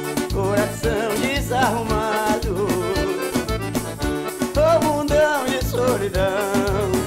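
Live forró band playing a vaneirão: acoustic guitar and keyboard over a quick, steady bass pulse, with a wavering melody line carried on top.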